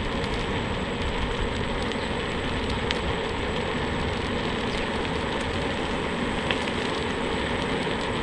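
Steady riding noise from a Xiaomi M365 electric scooter on 10-inch tires at about 20 km/h: wind rumbling on the microphone over the tires rolling on asphalt.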